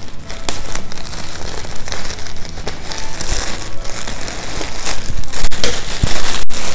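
Plastic courier mailer bag crinkling and rustling in irregular crackles as it is handled and cut open.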